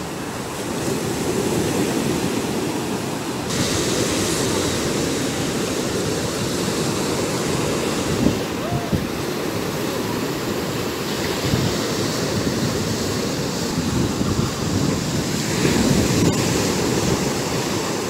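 Rough Black Sea surf breaking and washing up a sandy beach in a small storm, a continuous rushing wash that swells and ebbs with each wave.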